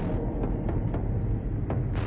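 Background music with a deep, steady low rumble and a sharp hit near the end.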